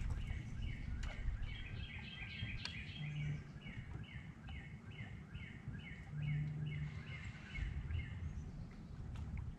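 A songbird singing a rapid series of repeated, falling two-part notes, about two or three a second, stopping shortly before the end. Underneath, a low rumble of wind and water, and a steady low hum that comes in briefly twice.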